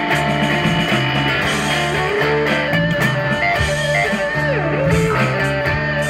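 Band playing rock music: electric guitar lead with bent notes over a bass line.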